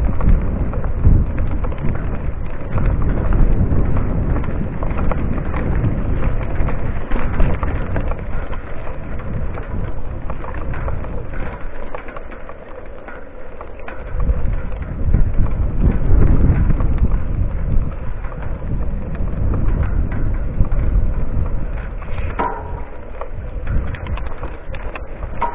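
Wind buffeting the microphone over the rolling noise of a mountain bike riding a dry dirt singletrack, a loud low rumble that rises and falls with the ride and eases for a couple of seconds in the middle. A short rising squeak sounds near the end.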